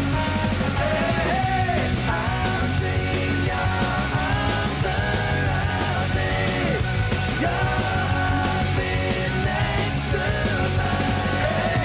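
A punk rock song playing: loud, dense band sound with shouted, yelled singing over it.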